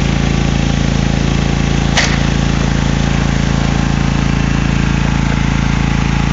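A small engine runs steadily at an even idle throughout. About two seconds in comes a single sharp snap as a bowfishing arrow is shot.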